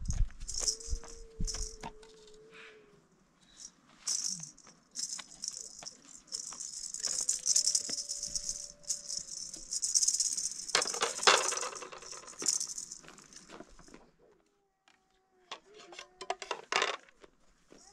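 Metal spoons and a ladle clinking and scraping against metal plates and a cooking pot as food is served and eaten, with a high rattling hiss that comes and goes. The rattling peaks about eleven seconds in and pauses briefly near the end.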